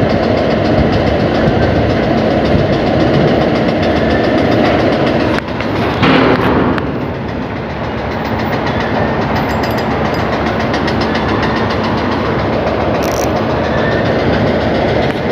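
Steady wind rumble buffeting the microphone on an open sea jetty, with a brief louder rustle about six seconds in.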